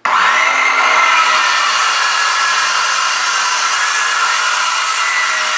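Handheld power saw starting abruptly and cutting steadily into a wooden door to open a hole for a window, with a steady motor whine over the cutting noise.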